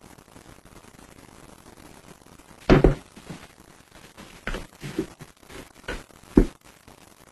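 A heavy thump about three seconds in, then a run of four or five lighter knocks and clunks, like hard objects being bumped and handled while groping in the dark.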